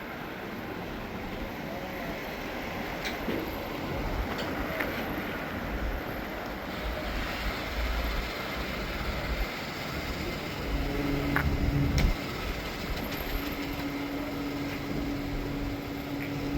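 Road and engine noise heard inside a moving car: a steady low rumble, joined about ten seconds in by a steady low drone, with a few light clicks.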